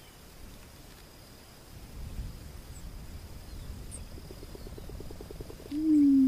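Male Attwater's prairie chicken in booming display: a rapid patter of foot stamping, then, near the end, the start of a low, steady hooting boom from the inflated neck sacs.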